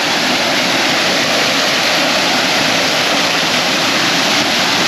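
Waterfall pouring into a creek: a steady, even rush of water.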